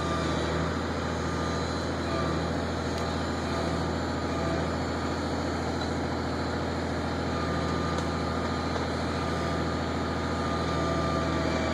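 Pulp truck's diesel engine running steadily, with a faint whine that comes and goes.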